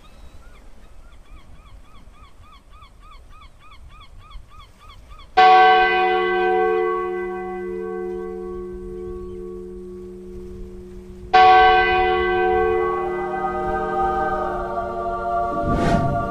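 A large bell struck twice about six seconds apart, each strike ringing on with several steady tones that slowly die away, and struck again near the end. A quick run of repeated chirps, about three a second, comes before the first strike.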